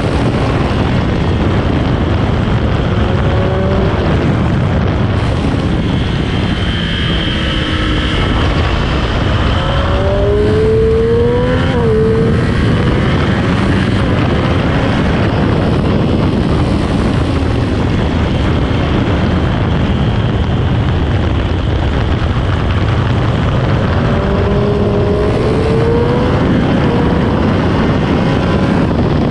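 Triumph Street Triple 765 RS on stock exhaust at speed on a track, mostly a heavy rush of wind with the engine underneath. The engine pitch climbs under acceleration three times, the loudest about ten seconds in, which drops sharply at its peak like an upshift.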